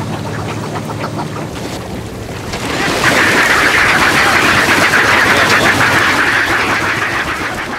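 A packed flock of northern fulmars squabbling over fish scraps at a boat's side: a dense mass of cackling calls and splashing water, which grows much louder about three seconds in.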